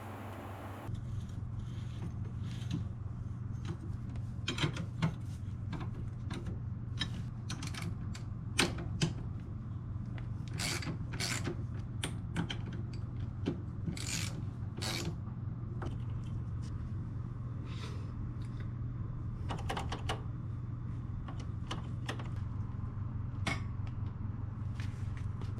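Irregular light clicks and clinks of small metal parts and hand tools being handled, over a steady low hum.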